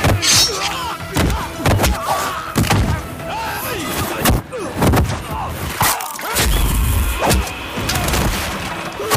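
Fight-scene punch and hit sound effects, about a dozen heavy thuds in quick succession, over background music.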